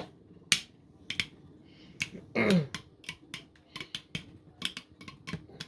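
3D-printed Beyblade spinning tops clacking against each other and the stadium: sharp plastic clicks, a few at first and then in quick clusters in the second half, with a brief falling tone about two and a half seconds in.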